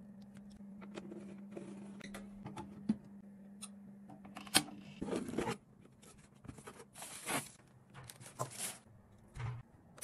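Handling noises: scattered sharp clicks and short scraping, rustling strokes, over a low steady hum that stops about halfway through.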